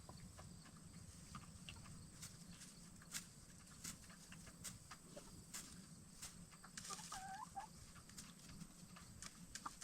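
Hens in a chicken coop, faint: scattered soft clicks and taps, with one short, soft hen call about seven seconds in.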